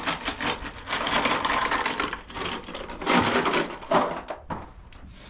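Rapid clattering and rattling of hard objects knocking together, in two busy stretches that ease off near the end.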